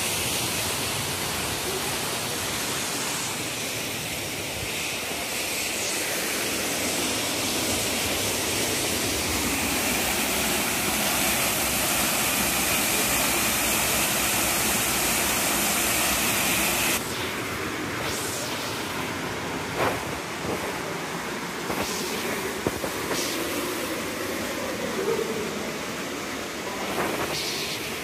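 Waterfall water rushing down over rocks, a steady hiss that grows slightly louder and then cuts off abruptly about two-thirds of the way through. After that there is a quieter hiss with a few sharp clicks.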